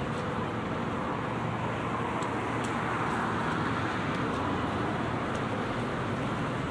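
City street traffic: a steady hum of cars and tyres on the road, growing a little louder around the middle.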